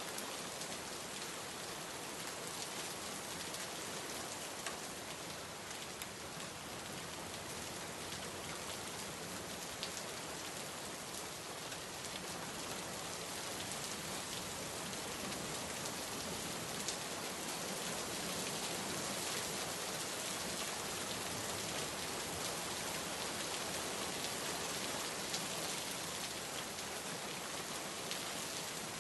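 Steady rainfall: a dense, even hiss of rain with many small drops pattering on a surface, growing slightly louder in the second half.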